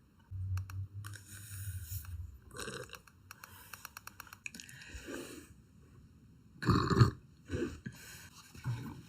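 A young woman burping, several burps in a row; the loudest comes about seven seconds in.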